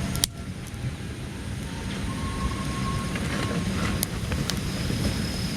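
Wood fire burning, with sharp crackling pops from the firewood, one loud pop just after the start and a few more around four seconds in. Under it runs a steady low rumble of wind on the microphone.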